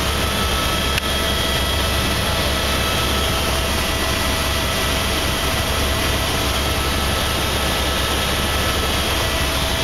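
Helicopter in flight heard from inside its cabin: steady, loud engine and rotor noise with a deep drone and several faint, steady whining tones above it.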